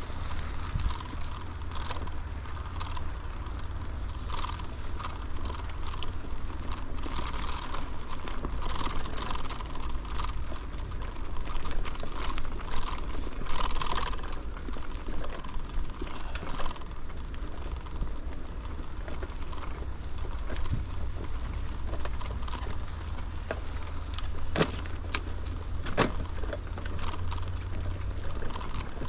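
Bicycle being ridden along a path: tyres rolling and loose parts rattling over bumps, with a steady low wind rumble on the microphone and a couple of sharp knocks near the end.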